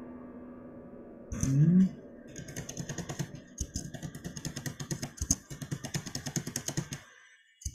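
The last notes of a virtual grand piano die away. After a brief loud rising 'hm' of a voice, rapid typing follows on a computer keyboard, its keys clicking several times a second, with a short pause near the end.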